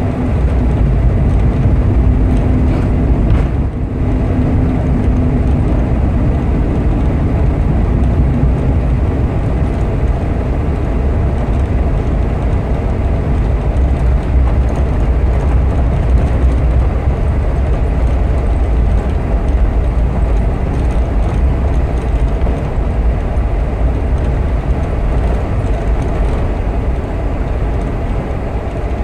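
Boeing 747 cabin noise during the landing roll: a loud, steady low rumble of the engines and the wheels running along the runway, easing slightly near the end.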